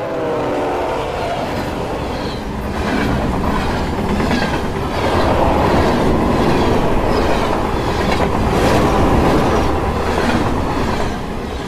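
Passenger train passing close by: a steady rumble of wheels on rails with a regular clickety-clack, loudest in the middle and fading near the end. A brief falling tone sounds at the very start.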